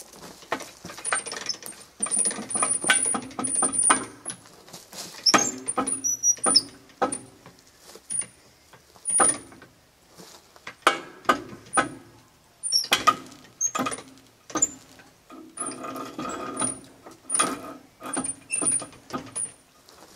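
A hand hoist clicking in spells as a buck deer is hauled up out of a steel cart, with short high squeaks mixed in.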